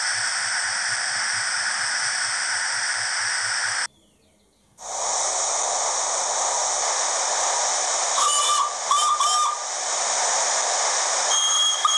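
Hornby HM7000 sound decoder in a model W1 locomotive playing its steam sound file through a small loudspeaker: a steady hiss of steam with a soft low pulsing under it, which stops for about a second around four seconds in. When the hiss resumes, the whistle sounds three short toots about eight to nine and a half seconds in and one more brief toot at the end.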